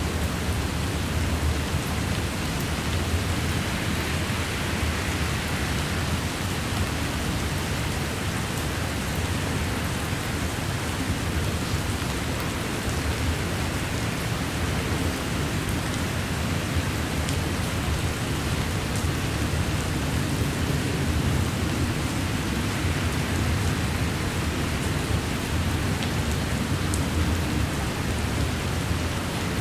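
Heavy rain in a thunderstorm, a steady hiss with a low rumble underneath, as a double-stack container freight train rolls past.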